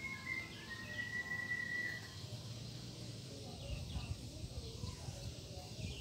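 Cockatiel whistling: one held, steady whistle note lasting over a second that dips at its end, followed by a few faint short chirps over a low rumble.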